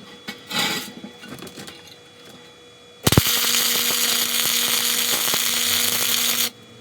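A cheap wire-feed welder striking an arc about three seconds in: a sudden, loud, steady hiss of the weld with a low hum beneath it, lasting about three and a half seconds and stopping abruptly.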